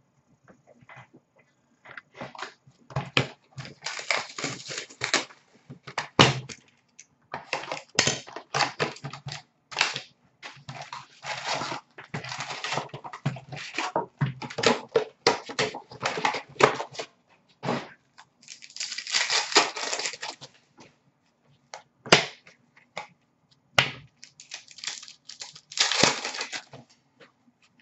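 Trading card packs being torn open by hand: pack wrappers crinkling and tearing, and cards being slid, flicked and sorted, in rapid irregular bursts with a few sharper snaps.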